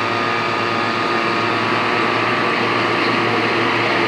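Fire-fighting pump engine running steadily, a constant droning hum with a clear, unchanging pitch, feeding water into the hoses.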